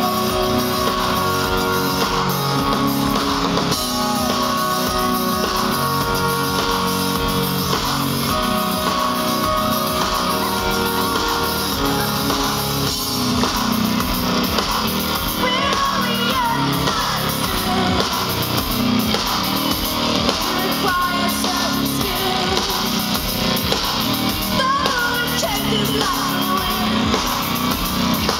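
A live band playing amplified through a stage PA, with a lead singer over guitars, drums and bass, heard from within the crowd.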